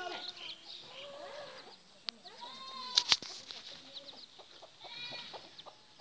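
A hen and her young chicks calling: repeated short, high falling peeps over lower clucking calls. Two sharp clicks stand out, the louder one about three seconds in.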